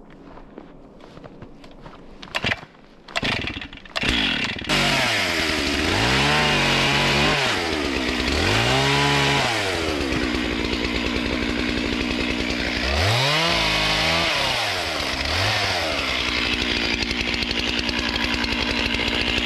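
Stihl MS 441 two-stroke chainsaw starting up about four seconds in after a couple of short bursts, then running, its throttle revved up and let back down several times.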